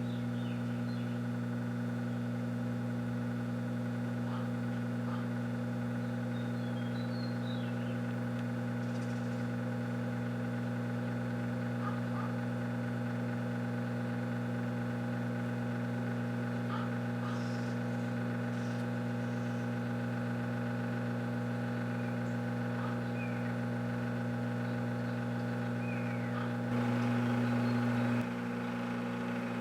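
Microwave oven running with a whole watermelon inside: a steady electrical hum, briefly louder for about a second and a half near the end.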